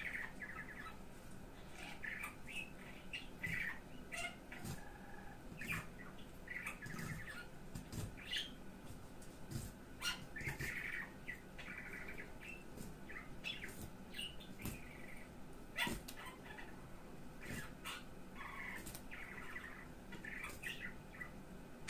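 A kitchen knife cutting and scraping along a silver carp's skin on a wooden cutting board, with scattered sharp clicks. Short bird-like chirps come and go throughout.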